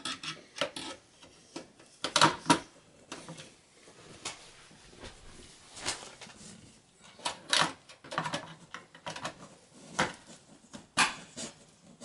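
Scattered clicks, taps and knocks of plastic and sheet metal as a low-profile graphics card is seated into a PCI Express x16 slot inside a desktop PC case, with the loudest knocks about two seconds in and near the end.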